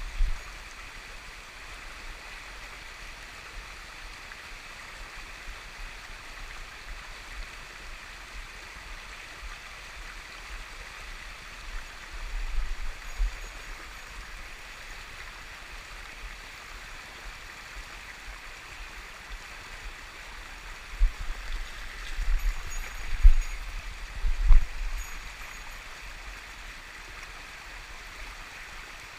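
Mountain stream water rushing steadily, with a few low thumps about twelve seconds in and again near the end.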